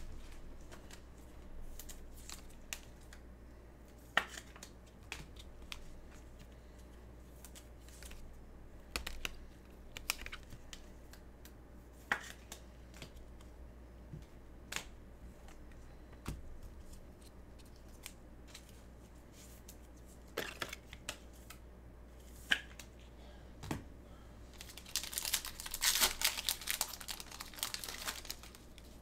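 Football trading cards being handled: scattered light clicks and snaps as cards are flipped and sorted. About 25 seconds in, a couple of seconds of crinkling and tearing as a card pack wrapper is opened. A low steady hum runs underneath.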